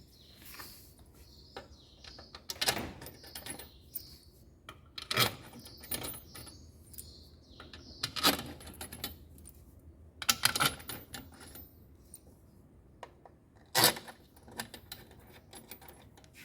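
Scattered light metallic clicks and clinks of screws and hand tools being handled while the stator of an LG direct-drive washing machine is refitted, with a few sharper clicks spread through.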